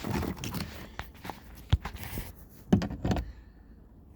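A power drill being handled, with no motor running: a series of sharp knocks and rattles, the loudest about halfway through and again about three seconds in.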